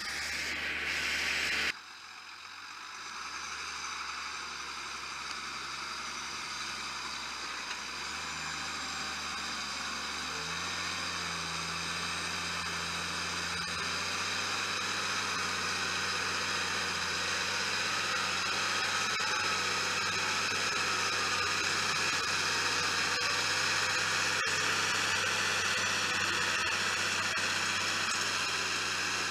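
New Holland TVT 145 tractor's six-cylinder diesel engine working under load as it pulls a five-furrow plough: a steady engine note with a high whine over it, growing louder as the tractor draws near. A louder, closer stretch cuts off abruptly just under two seconds in.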